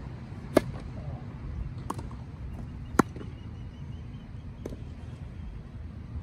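Tennis rally on a grass court: a racket strikes the ball four times, a loud near serve about half a second in, a fainter return from across the court, another loud near hit about three seconds in, and a faint far hit near five seconds.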